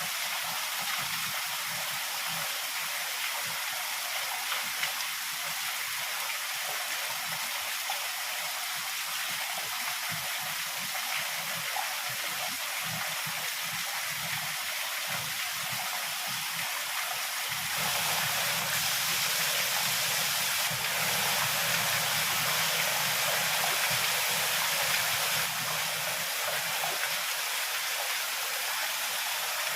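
Heavy rain falling in a steady, even hiss. It swells louder and fuller for about eight seconds past the middle, then settles back.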